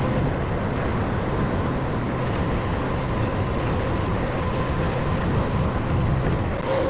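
Honda gas engine of a mini skid steer running steadily under load.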